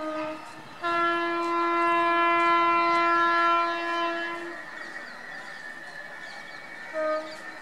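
Electric multiple-unit train's horn: a short blast at the start, a long steady blast of about three and a half seconds, then a brief toot near the end, over the running noise of the approaching train.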